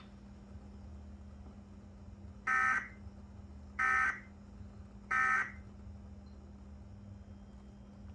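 Emergency Alert System end-of-message data bursts: three short, identical buzzy digital bursts a little over a second apart, signalling the end of the alert. A faint steady hum runs underneath.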